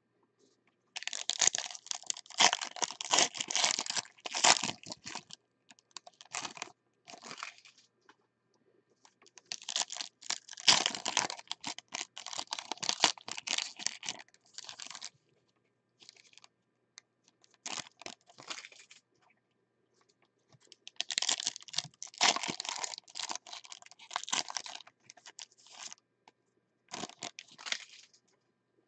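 Foil trading-card pack wrappers crinkling and tearing open, and cards being handled, in three main spells of rustling with short pauses between them.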